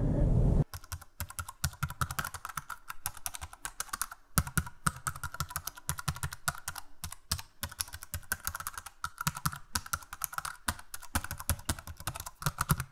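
Typing on a computer keyboard: a quick, irregular run of key clicks that starts just under a second in.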